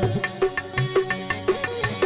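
Instrumental passage of a Balochi folk song: hand-drum strokes in a steady beat under a stringed instrument's melody.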